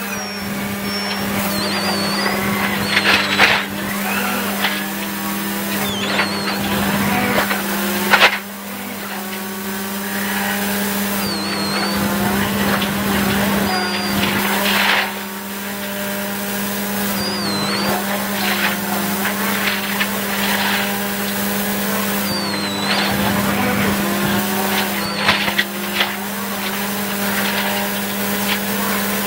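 Inside the cabin of a Volkswagen Polo R5 rally car at full attack on a gravel stage: its 1.6-litre turbocharged four-cylinder engine revs hard through the gears. The pitch climbs and falls with each shift, and sharp lifts off the throttle come about 8 and 15 seconds in, over tyre and gravel noise.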